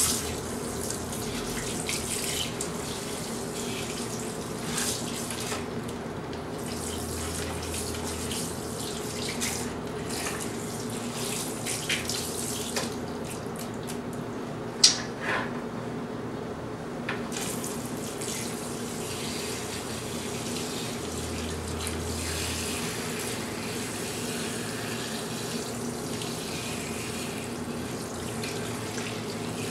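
Tap water running steadily into a washbasin, splashing over a lathered head of hair as it is rinsed. A single sharp knock about halfway through.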